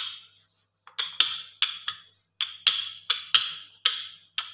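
Wooden rolling pin knocking against a marble worktop as it rolls out a paratha: a string of about ten sharp wooden clacks, irregularly two or three a second.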